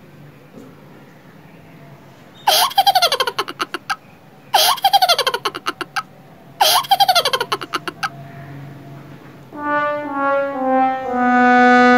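A laughter sound effect in three bursts, each a quick run of laughs falling in pitch. Then a sad-trombone effect: four brass notes stepping down, the last held longest.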